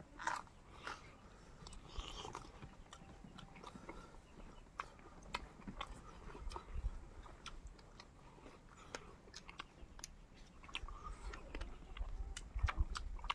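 Close-miked chewing and mouth sounds of a person eating, made up of many small wet clicks, with a few low knocks near the end.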